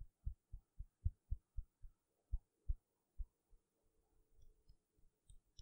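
Soft, dull low thumps, about four a second at first, then slower and uneven after about two seconds, with a few faint light clicks near the end.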